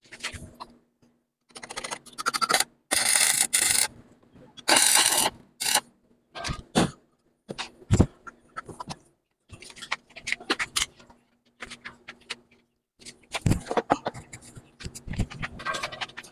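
Electric arc welding on a Yamaha DT125's rear frame: three short crackling bursts of the arc in the first half, followed by irregular knocks, clicks and scraping of hand work on the metal. A low steady hum sounds underneath.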